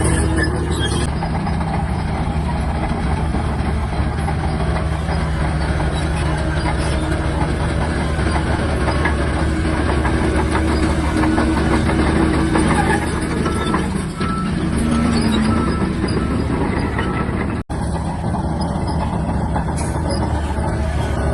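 SHANTUI DH17-C3 crawler bulldozer's diesel engine running steadily under load, with the clanking of its steel tracks. The sound drops out for a split second near the end.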